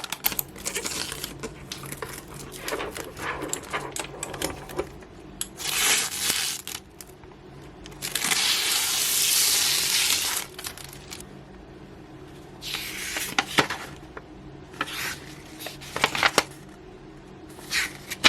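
Keyboard and its packaging being handled during an unboxing: scattered clicks and knocks, with bursts of rustling, the longest about eight seconds in and lasting some two seconds.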